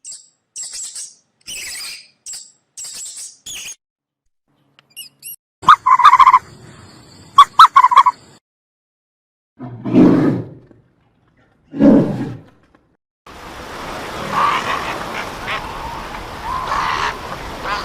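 A string of different animal calls in quick succession: short high chirps, then a few loud calls, two low calls, and finally a longer, noisier stretch of calls near the end.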